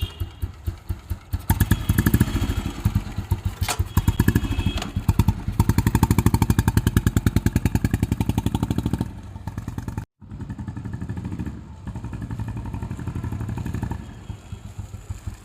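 Royal Enfield Machismo 350's single-cylinder engine idling with an even thump, then revved and held at higher revs for several seconds. The sound drops out briefly about ten seconds in, then the engine runs a little fast before easing back toward idle near the end.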